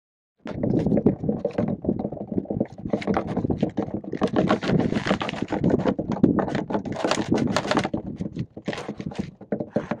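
Homemade right-angle chain drive turning: a regular roller chain, each link cut on one side and bent in a circle around a wooden disc, rattling and clacking as it meshes with a steel sprocket. A dense run of fast, uneven clicks.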